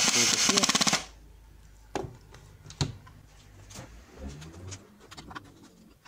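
Electric screwdriver driving a screw into a plastic circuit-board housing, its motor running with a rapid rattle and stopping suddenly about a second in. After that, a few sharp clicks and light handling of the plastic board.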